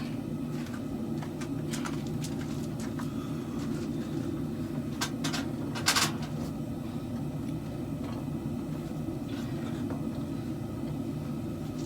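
Forge running with a steady low roar, with a few light clicks and one louder clink about six seconds in.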